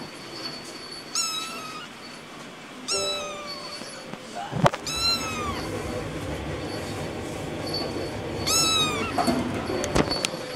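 A young kitten meowing four times, short high-pitched mews a couple of seconds apart. A sharp tap comes just before the third mew.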